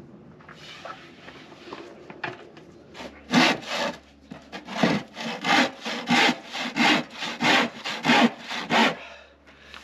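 Handsaw cutting through a wooden board in steady back-and-forth strokes, about three a second, starting about three seconds in and stopping near the end.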